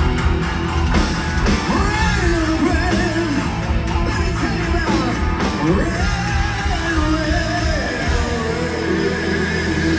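Live heavy metal band playing loud in the closing section of a song: drums, distorted guitars and bending, wailing melodic lines. The low end settles into a more sustained held sound about eight seconds in.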